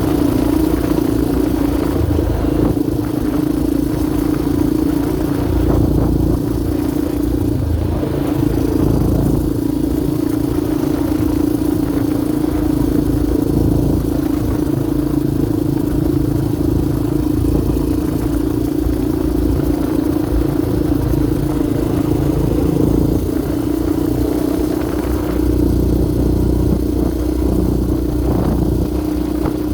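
Yamaha Raptor 700R sport quad's single-cylinder four-stroke engine running under way, holding a fairly steady pitch throughout.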